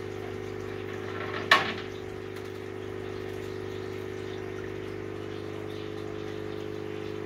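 Steady hum of an aquarium filter pump, with a brief splash of water about one and a half seconds in as the container of juvenile fish is emptied into the tank, ending in one sharp impact.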